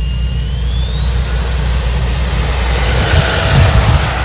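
Electric ducted fan of an E-Flite F-16 Falcon 80mm EDF RC jet spooling up to takeoff power: a whine that rises steadily in pitch for about three seconds, then holds a high steady note and grows louder as the jet starts its takeoff roll.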